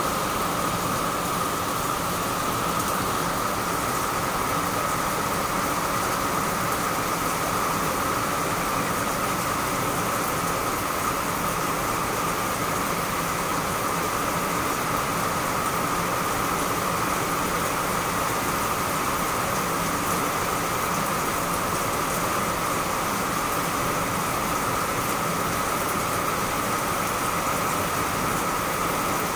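Steady rain falling on trees and potted plants, an even hiss that holds without let-up.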